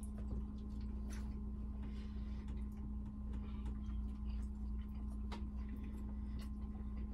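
Eating at a table: scattered light clicks and taps of forks against food containers and foil wrapping, over a steady low hum.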